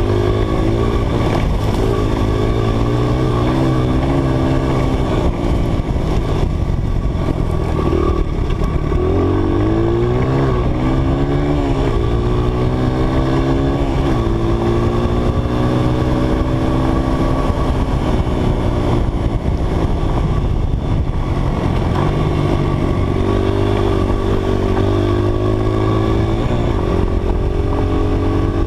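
Dirt bike engine under way, its pitch climbing and falling with the throttle, with a couple of sudden drops in pitch between climbs, typical of gear changes.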